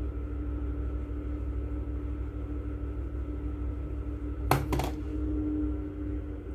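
A steady low hum with a faint steady tone over it, and a quick cluster of two or three knocks about four and a half seconds in.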